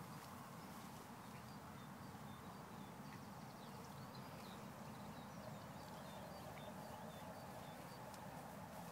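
Faint open-field ambience: a low steady rumble with many short, high bird chirps scattered throughout.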